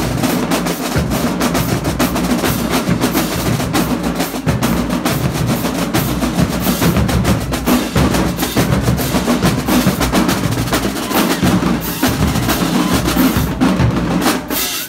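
Marching drumline playing a loud, fast cadence on snare drums with crash cymbals, dense rapid stick strokes throughout. It starts suddenly and cuts off sharply about fifteen seconds later.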